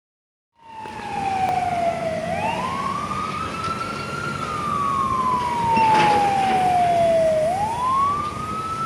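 Fire truck siren wailing, starting about half a second in: its pitch sweeps up quickly, then falls slowly over about three seconds, twice over, with vehicle engine and road noise beneath.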